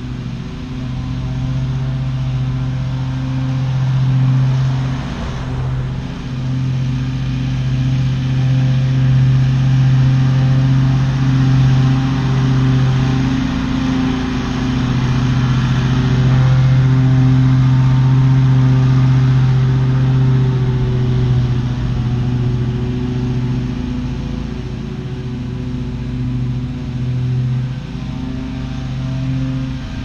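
Wright Stander stand-on mower's engine running steadily under load while it cuts grass. It swells louder through the middle and eases off again near the end.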